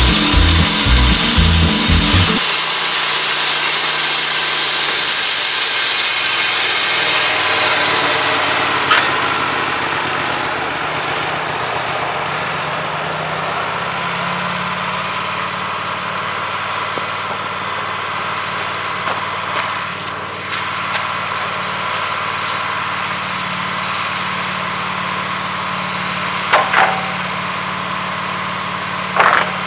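Woodmizer LT15 Go sawmill's band blade cutting through a pine log with a loud, dense hiss. About eight seconds in the cut ends and the mill's engine runs on at a steady, lower hum, with a few sharp clicks or knocks near the end.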